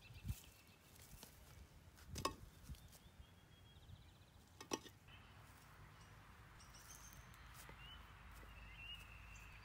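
Three short, sharp knocks of concrete cinder blocks being set down on one another in the first five seconds, over faint birds chirping; otherwise near silence.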